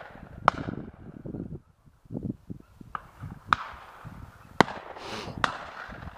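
Shotgun shots on a driven shoot: about five sharp reports at irregular intervals, the loudest a little past the middle. A low rumble runs under them.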